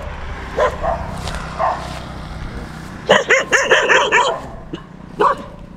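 A dog barking: single barks spaced under a second apart, then a quick run of barks about three seconds in, and one more bark near the end.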